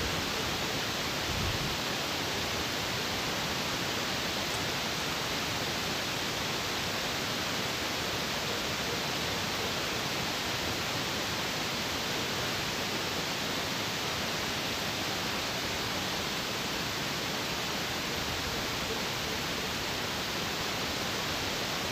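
Steady sizzling hiss of spiced masala and potatoes frying in oil in an aluminium kadai while they are stirred together.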